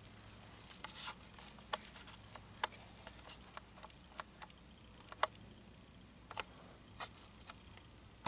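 Light metallic clinks and jingles from a horse's shanked curb bit and curb chain as the bridle is handled and shaken. The clicks come irregularly, thick in the first few seconds and more spaced out after.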